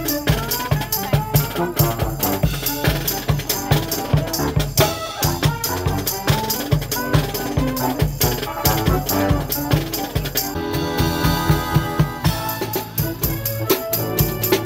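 Marching band playing: sousaphones and trombones over a steady drum and cymbal beat.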